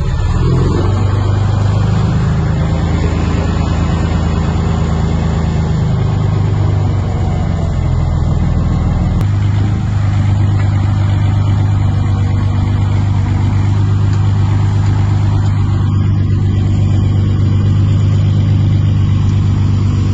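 Heavy diesel engine running steadily, its note shifting a few times in the first half before settling into a steady drone.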